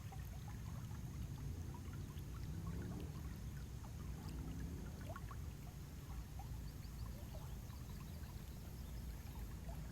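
Nature-sound recording of running water: a steady low rush with small trickling, bubbling sounds throughout.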